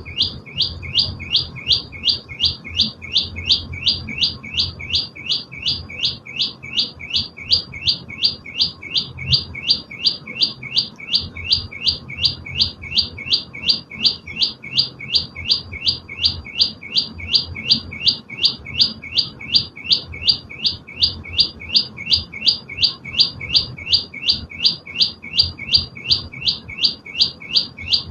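A prenjak lumut songbird calling nonstop: one short, sharp chirp repeated evenly about three times a second.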